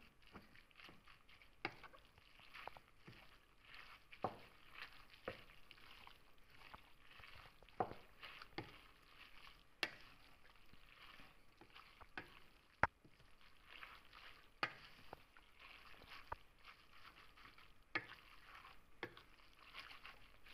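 Wooden spoon stirring and chopping through a soft vermicelli and shrimp filling in a pot: a soft wet rustle with irregular sharp knocks of the spoon against the pot, about one a second.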